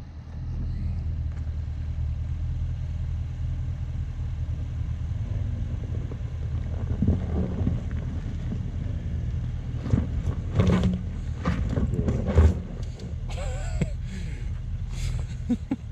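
Range Rover Sport engine running at a slow, steady crawl in low range, rock-crawl mode, as the SUV creeps over a rocky trail: a deep, even drone. In the second half come a few knocks and crunches of stone under the tyres.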